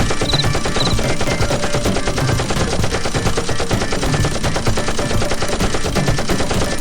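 Rapid automatic gunfire: a dense, unbroken stream of shots.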